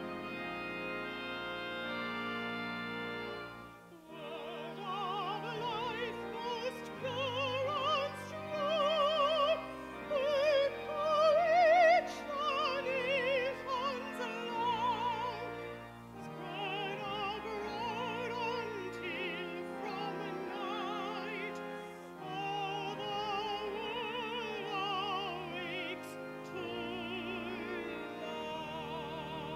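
A woman soloist singing in a classical, operatic style with wide vibrato, accompanied by organ. Held organ chords sound alone for the first few seconds before her voice comes in.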